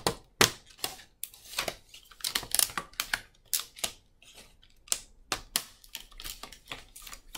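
Stiff plastic packaging being cut open, giving a quick, irregular run of sharp clicks and crackles.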